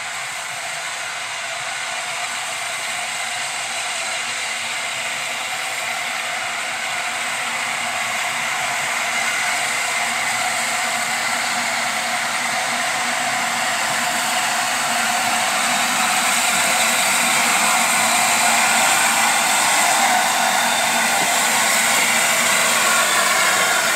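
LNER A4 Pacific steam locomotive 60007 Sir Nigel Gresley drifting slowly past, a steady hiss of steam with some mechanical rattle from its motion, growing steadily louder as it approaches.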